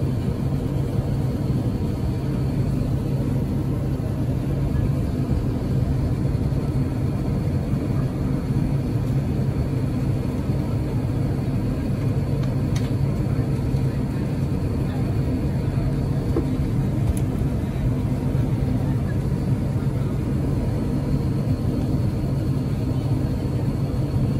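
Steady low rumble and hum inside the cabin of an Airbus A350-900 on the ground, its Rolls-Royce Trent XWB engines running at low power along with the cabin air system. The level holds even throughout, without the rising swell of a takeoff roll.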